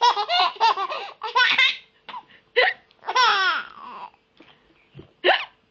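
Baby laughing in repeated high-pitched bursts, one longer falling laugh about three seconds in, with a woman's hiccups among them.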